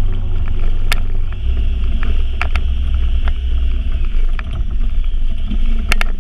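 Honda Pioneer 1000-5 side-by-side driving through snow, its engine running under a heavy low rumble, with scattered sharp clicks.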